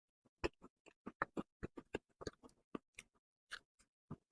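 Faint chewing of a small cream puff: sparse, soft wet mouth clicks and smacks, a few each second.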